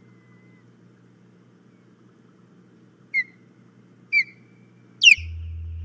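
Osprey calling: three short, high whistled chirps about a second apart, each falling in pitch, the third the loudest. A steady low hum comes in right after the last chirp.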